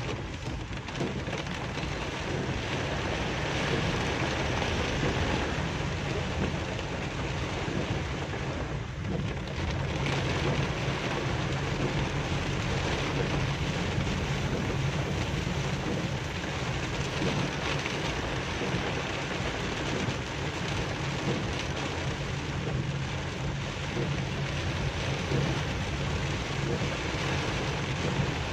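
Heavy rain pelting a car's roof and windshield, heard from inside the cabin as a steady, dense hiss, with a steady low hum underneath.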